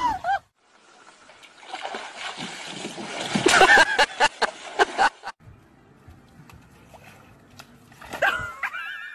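Water splashing, with a louder rush of splashing and short cries in the middle. A dog barks near the end.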